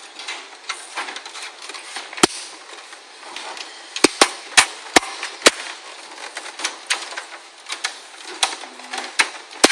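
Irregular sharp clicks and knocks of a hard drive being worked into a PC case's drive bay and its latch. A handful of loud knocks stand out among many lighter clicks.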